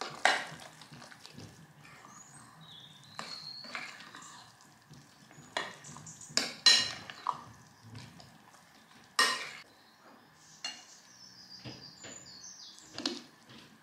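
A spoon stirring soft, creamy dumplings in a glass mixing bowl, with scattered clinks and scrapes of the spoon against the glass. Near the end, spoonfuls are dished onto a ceramic plate.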